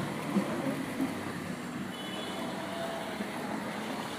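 City street ambience: a steady wash of traffic noise with vehicles passing, and a few faint brief tones in the background.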